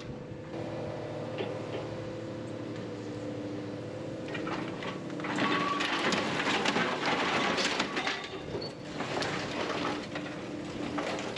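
Scrap-yard material handler's engine and hydraulics running steadily. From about five seconds in, its orange-peel grapple bites into the scrap metal, making a few seconds of loud clanking, scraping and crunching metal.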